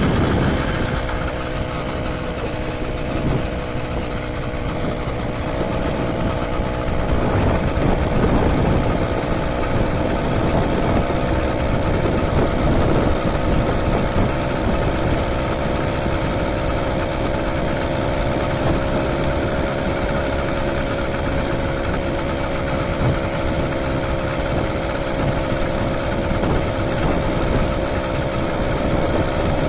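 Small 80cc engine of a motorized bicycle running steadily under way. It eases off slightly a couple of seconds in, then picks up again and holds an even cruising note.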